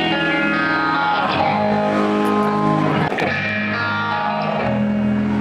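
Guitar music with long, held, ringing notes.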